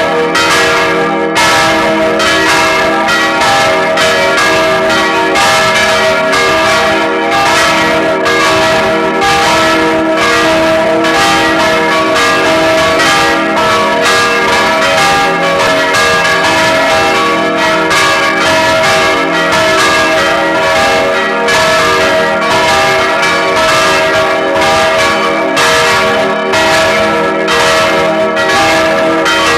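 Full peal of four church bells ringing together: three baroque bells cast in 1788 by Anselm Speck of Heidelberg and a small bell from 1988. Strikes follow one another steadily, several a second, over a continuous ringing hum.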